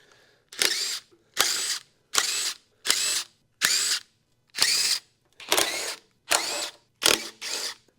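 Power impact wrench pulsed in about ten short bursts, under a second apart, its motor pitch rising and falling with each trigger pull as it works on a bolt.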